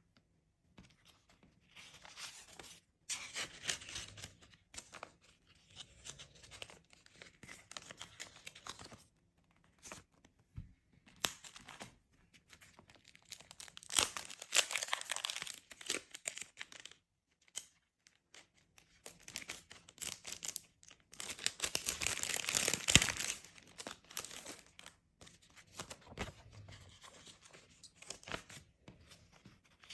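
Paper handled in irregular bursts of rustling, crinkling and tearing as red ang pao envelopes are wrapped, with a longer, louder stretch about two-thirds of the way through.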